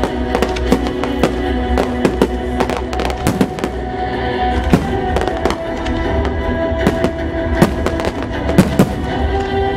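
Aerial fireworks shells bursting in frequent sharp bangs and crackles, with music of held notes playing under them.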